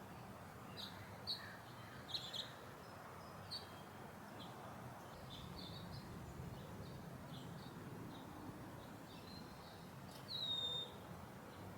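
Small birds chirping in short, high notes over a steady low background rumble, with one longer, louder falling whistle near the end.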